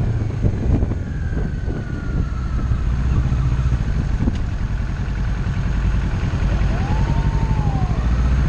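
Kawasaki Ninja 650 parallel-twin engine running at low revs under the rush of riding noise. Its note drops in pitch about a second in. A fainter tone rises and falls twice near the end.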